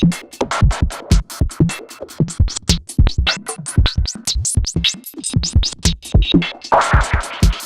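Electro drum-machine beat fed through an Erica Synths AcidBox III effects unit: dense, rapid hits over heavy kicks, with a noisy snare-like hit near the end.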